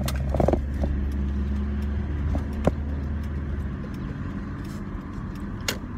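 Car engine and road rumble heard from inside the cabin as the car pulls away. The deep rumble eases off about two-thirds of the way through, and a few sharp knocks or clicks sound over it.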